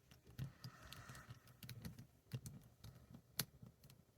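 Faint, scattered small metal clicks and taps of hand tools on a padlock as it is taken apart, its body screw being removed; one sharper click a little over three seconds in.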